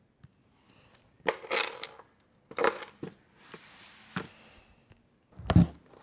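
Knocks, scrapes and rustling as paintings are handled and moved away from a wall, with the loudest thump near the end.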